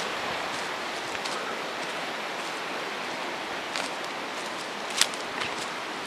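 Footsteps on dry leaf litter and twigs over a steady rushing background noise, with a sharp snap about five seconds in.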